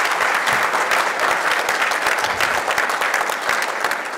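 An audience applauding, a dense crowd of hand claps that starts to die away near the end.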